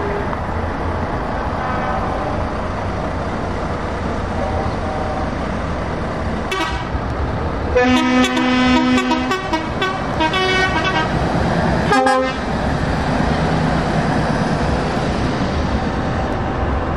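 Heavy truck diesel engines running as a convoy pulls away. Truck air horns sound in a cluster of blasts of several pitches through the middle, one longer held blast and a run of shorter toots, ending in a brief final blast.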